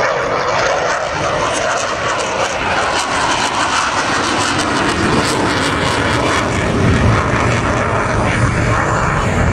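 Military jet fighter's engine noise as it flies a display pass, a loud steady jet sound.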